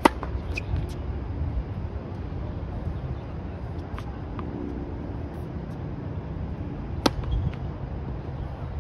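Tennis racket striking the ball on a serve: one sharp crack at the very start, followed by fainter ticks. Several more short ticks come as a ball is bounced on the hard court before the next serve, the loudest about seven seconds in. A steady low outdoor rumble runs underneath.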